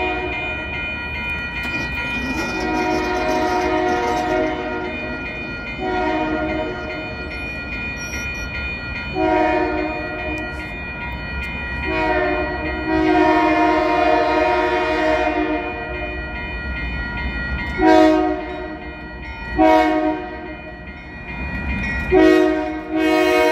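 Locomotive air horn sounding a string of multi-note blasts, long ones of several seconds mixed with short ones, over a low rumble. These are grade-crossing warning signals from an approaching train.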